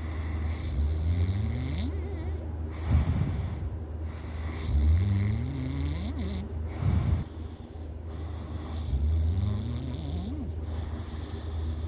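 A person snoring in their sleep, about one snore every four seconds. Each snore is a drawn-out tone rising in pitch, followed by a short, louder puff of breath.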